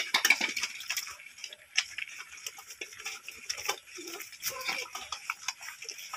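A litter of Belgian Malinois puppies eating softened kibble together from one stainless steel bowl: a busy, irregular stream of wet smacking, lapping and chewing clicks, with a few sharper clicks near the start and about two seconds in.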